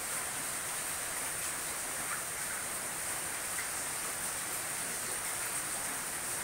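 Heavy rain falling steadily, an even unbroken hiss.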